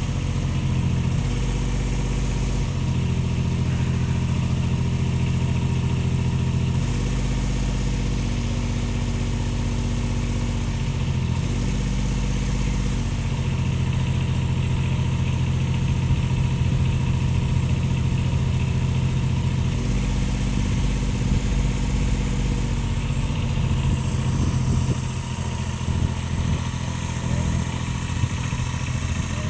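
Mini crawler crane's engine running steadily, its pitch stepping up and down several times as the boom's hydraulics are worked.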